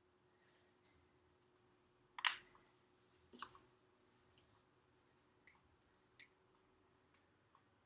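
Light plastic clicks and taps from a small plastic measuring cup and wooden stick as thick clear glue is emptied into a bowl. The loudest click comes about two seconds in and another about a second later, then a few faint ticks over a faint steady hum.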